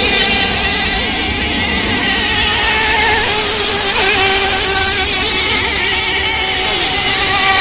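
Several radio-controlled model hydroplane race boats running flat out, their motors sounding together as a set of overlapping, wavering pitches over a hiss of spray.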